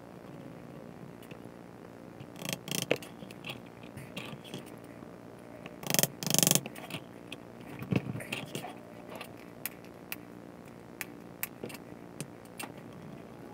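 Brass-headed fret hammer tapping freshly glued stainless steel frets down into a maple fretboard. The hits come as sharp knocks, loudest twice about six seconds in, among scattered lighter clicks and taps of tools being handled.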